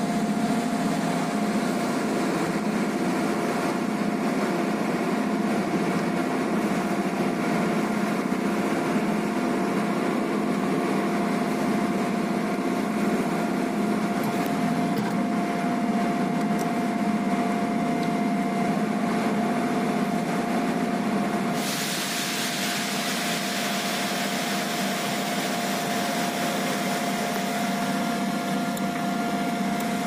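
Steady machine drone with a constant whine. Partway through, a hiss abruptly gets louder.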